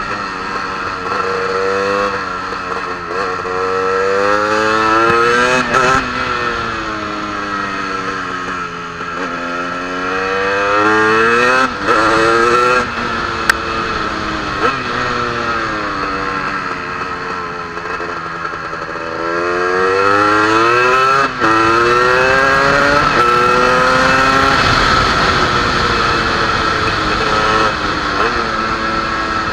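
KTM EXC 300 two-stroke dirt-bike engine under hard riding on board the bike, its pitch climbing on acceleration and falling off into corners over and over, with a few short breaks in the sound.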